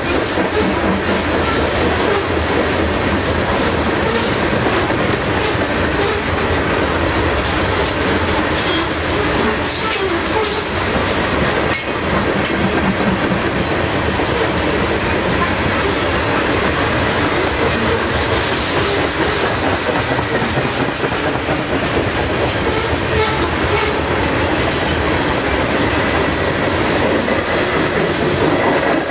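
Coal train hopper cars rolling past steadily: a continuous rumble of steel wheels on rail with clickety-clack over the rail joints. A few sharp, high clicks and squeaks come about a third of the way in.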